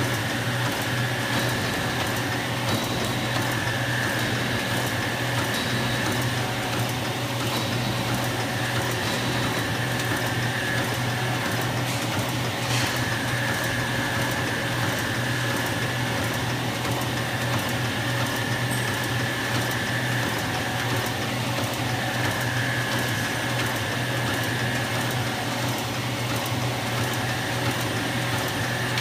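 Automatic end sheet tipping machine running continuously: a dense, rapid mechanical clatter over a steady low hum, with a higher-pitched whine that sets in and drops out every few seconds.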